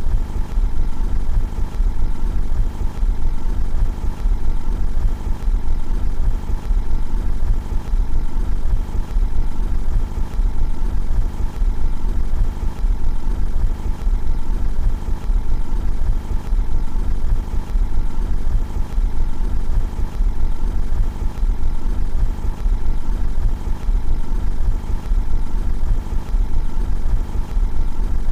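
Car engine idling steadily, heard from outside the car: an even low rumble with no revving.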